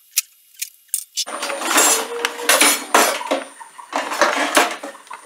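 A few sharp clicks, then kitchen utensils (wooden spatulas and metal tools) clattering and rattling in a pulled-out kitchen drawer as they are rummaged through by hand, with many knocks in a row.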